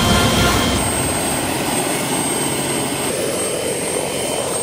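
Small helicopter running on the ground, a steady loud engine and rotor noise with a faint high whine. The deep rumble drops away about a second in.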